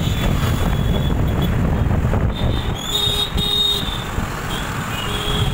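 Road traffic with a steady low rumble of engines and wind, heard from a moving vehicle. A vehicle horn honks twice in quick succession about three seconds in, and once more briefly near the end.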